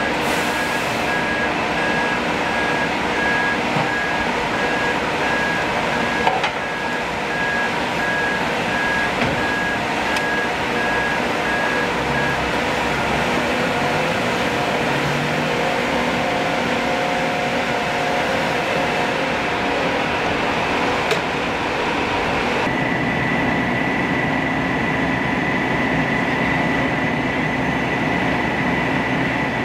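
Fire engine running steadily, with a repeating electronic beep through the first half. Later the drone changes and a steady high whine sits over it.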